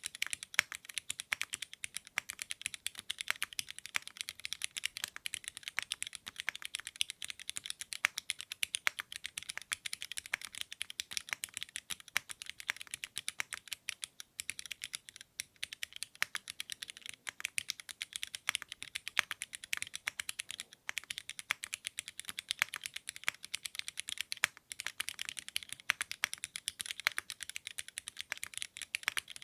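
Fast, continuous typing on a custom mechanical keyboard: dense, sharp keystroke clicks with short pauses about halfway through and again around three-quarters through.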